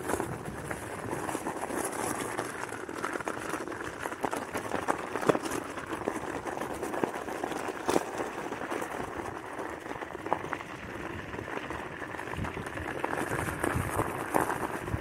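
Steady crunching and rattling of wheels rolling over a gravel trail strewn with dry leaves, with many small clicks and a few sharper knocks.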